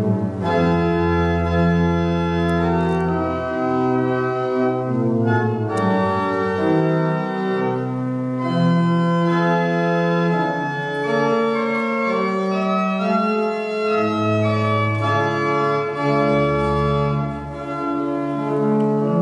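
Church organ playing a slow passage of sustained chords, the notes changing every second or two.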